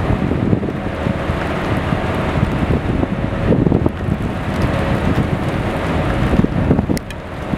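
Strong wind buffeting the microphone: a loud, uneven low gusting noise that dips briefly near the end.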